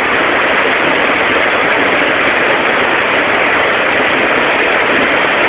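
Loud, steady rush of river water pouring over a low weir.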